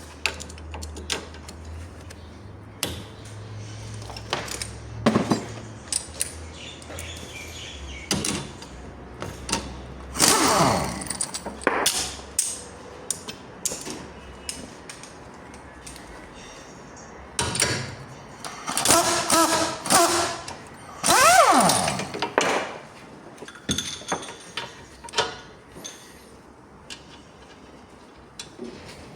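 Mechanic's tools working on a car's suspension during a stabilizer link replacement: scattered metallic clicks and knocks, with a few loud runs of a power tool whose pitch sweeps up and down, around a third of the way in and again about two-thirds in.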